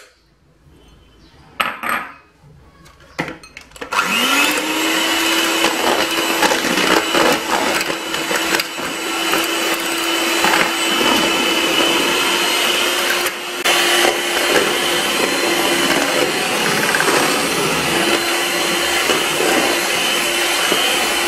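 A couple of light knocks, then an electric hand mixer switches on about four seconds in. Its motor whines quickly up to speed and runs steadily as the beaters whip liquid cream and icing sugar into whipped cream (crème chantilly).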